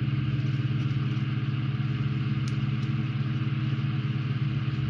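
A steady low hum with several even, unchanging tones, with a couple of faint ticks about two and a half seconds in.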